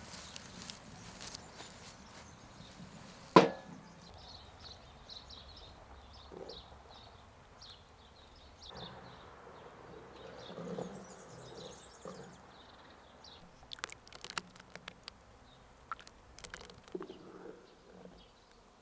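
A heavy black pan set down on an iron outdoor stove with one sharp clank about three seconds in, then a wooden spoon stirring strawberries cooking for jam, with soft scrapes and a run of light knocks against the pan near the end. Faint chirps in the background.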